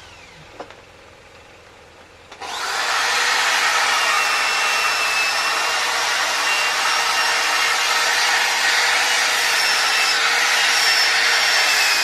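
A handheld electric power tool cutting into wood: after a quiet start with one small click, the tool starts up about two seconds in and then runs steadily with a noisy hiss and a faint high whine.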